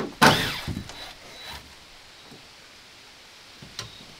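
A wooden siding board scraping and squeaking against the shed wall as it is worked into place. There is one loud scrape with a squeal about a quarter second in, then a few lighter knocks and rubs over the next second, and little after that.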